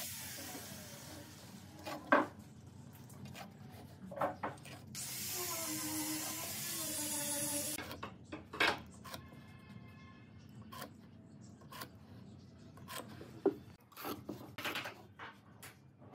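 Light clicks and taps of a steel square being set on a wooden board and a pen marking along it, with scratchy rubbing between them. A steady hiss underneath stops suddenly about eight seconds in.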